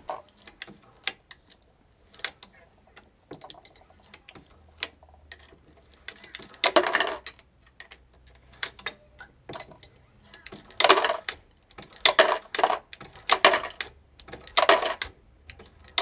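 A Hornady progressive reloading press is worked by hand to deprime brass cartridge cases with a Lee universal decapping die. Each stroke of the handle brings sharp metallic clicks and clinks. The louder strokes come about once a second in the second half.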